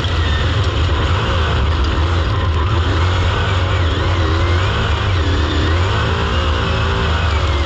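Dirt super late model's V8 engine running at racing speed, heard on board the car, its pitch rising and falling.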